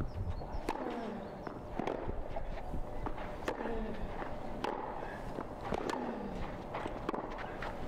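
Tennis rally on a clay court: sharp pops of racket strikes and ball bounces about once a second. Most strikes are followed by a short grunt that falls in pitch.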